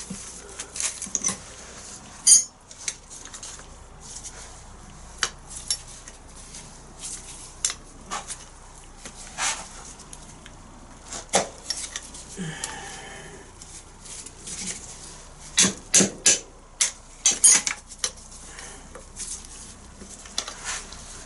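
Irregular metallic clinks, taps and knocks as tools and rusty classic Mini rear suspension parts are worked by hand. One sharp knock comes about two seconds in, and a quick run of knocks comes about three-quarters of the way through.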